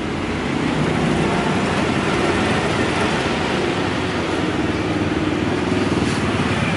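Road traffic close by: a steady motor-vehicle engine rumble under a wash of road noise, a little louder from about half a second in.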